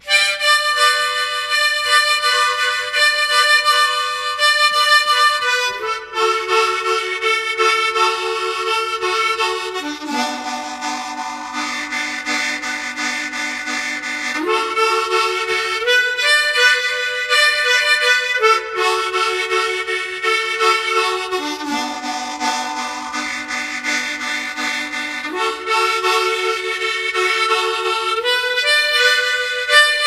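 Harmonica playing slow, sustained chords, each held for about three to four seconds before shifting to the next. It comes in abruptly at the start after a short quiet gap.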